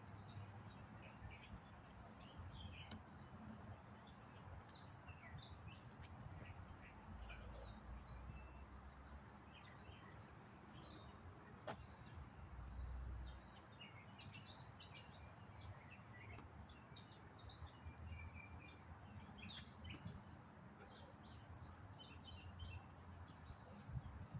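Faint birdsong, with many short chirps from several birds, over a low rumble of wind on the microphone that swells twice.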